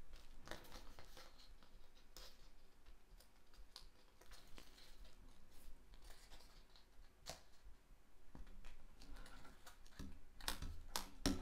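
Faint rustling and scratching of cardstock and adhesive tape being handled: the backing peeled off tear-tape and a paper band pressed around a glass bottle, with a few sharp clicks and taps that grow busier near the end.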